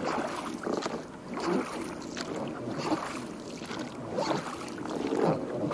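Small boat being rowed slowly through the water, with soft, uneven splashes of the oars about once a second.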